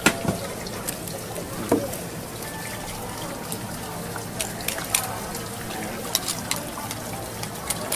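Tap water running from a hose nozzle over a freshly shucked oyster in its half shell, with scattered sharp clicks and clinks.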